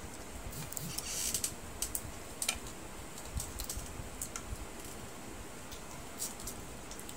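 Cooked crab shells cracking and snapping as they are broken apart and picked by hand: irregular small clicks and cracks, bunched in the first couple of seconds and then sparser.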